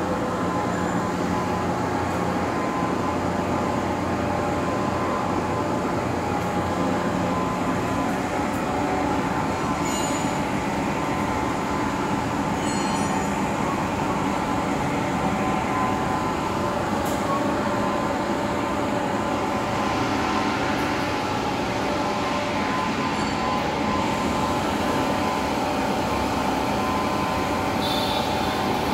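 Heavy-duty lathe running while it turns a large grooved steel roll: a steady mechanical drone from the drive and gearing, with several held whining tones. A low hum drops away about seven seconds in, and a few faint clicks come through.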